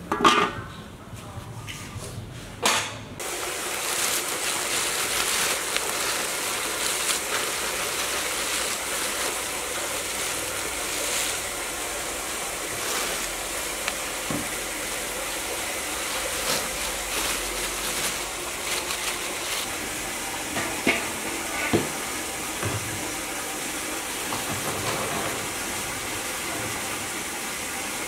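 A metal pot lid clanks down onto a large cooking pot, with a second clank a few seconds later. Then a steady rushing water noise runs on, with a few small clatters of kitchen things.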